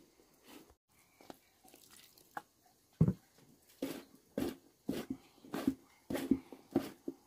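A regular series of dull knocks, a little under two a second, starting about three seconds in, with a few lighter ticks before.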